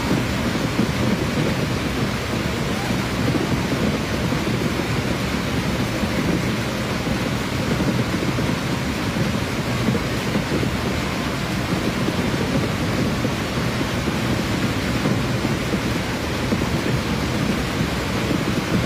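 A dense barrage of aerial fireworks shells bursting together: a continuous low rumble of overlapping booms mixed with steady crackling, with no single burst standing out.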